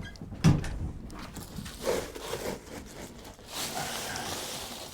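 Dry grain feed being scooped and poured: a sharp knock of the scoop about half a second in, some rustling, then a rushing pour of feed lasting about a second near the end.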